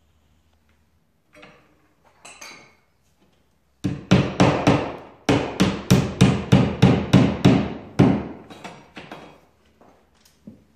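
Claw hammer driving a nail into the wall through a small metal-strap bracket: a fast, even run of about twenty blows, about four a second, starting about four seconds in and turning to lighter taps near the end.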